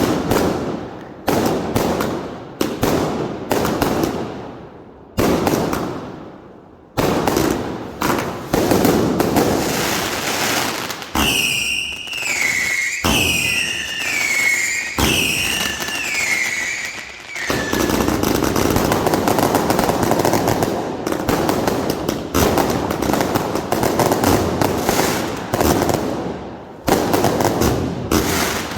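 Consumer F2-category firework batteries going off: a run of sharp bursts, then about five falling whistles from around eleven seconds in, then a long dense stretch of rapid crackling bursts.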